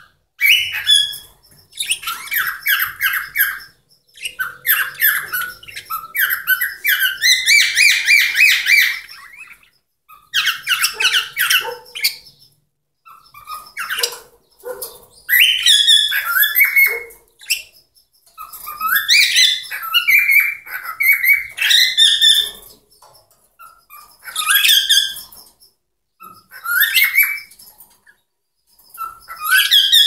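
Cockatiel singing: a string of whistled phrases made of rapid pulsed, warbling notes, each phrase lasting one to a few seconds with short pauses between them.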